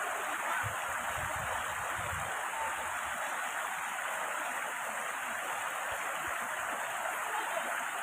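Shallow rocky mountain stream flowing and splashing over boulders and small cascades: a steady rush of water.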